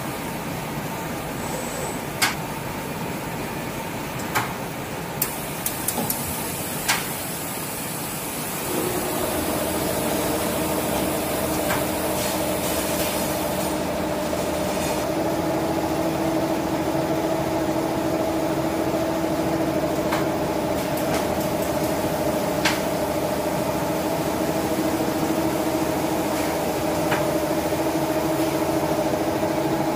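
Plastic flat bag making machine running, a steady mechanical drone with a few sharp clicks in the first several seconds. About nine seconds in it gets louder and a steady two-pitched whine comes in and holds.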